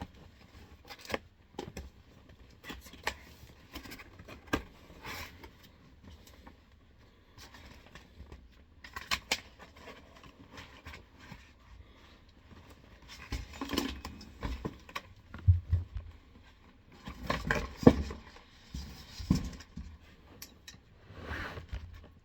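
An airsoft gun's box and packaging being opened and handled: scattered clicks, scrapes and rustles. The handling is busier and louder in the second half.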